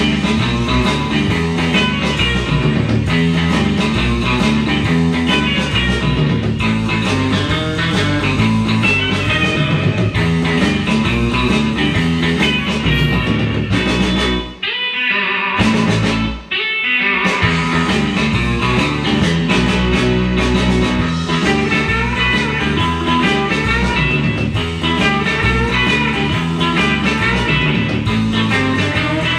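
Rockabilly-style rock and roll record playing, led by guitar; about halfway through the music briefly drops out twice.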